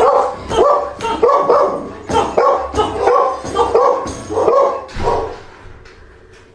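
Dog barks in a quick, steady series, about two to three a second, stopping about five seconds in.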